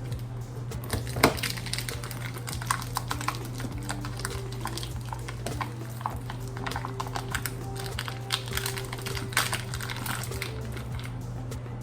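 Irregular light clicks and clatter of frozen sausage links being handled in their plastic tray and set into a skillet, over soft background music.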